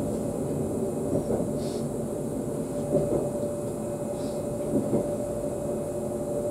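Cab of an ES2G Lastochka electric multiple unit under way: steady running rumble with a held whine, and an occasional knock every second or two.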